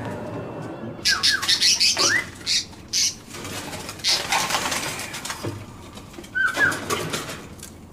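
Birds chirping and twittering, with short whistled calls that sweep up and down about a second in, at two seconds and again past six seconds.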